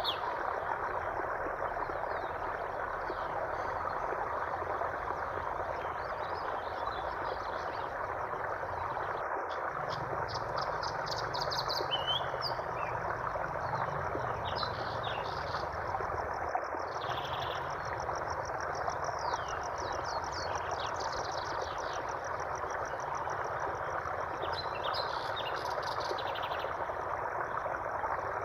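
Steady rush of flowing water, with small birds chirping and trilling over it throughout.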